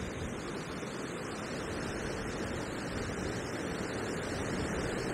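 Strong, gusty wind buffeting the microphone: a steady rushing noise, heaviest in the low rumble, that slowly grows louder.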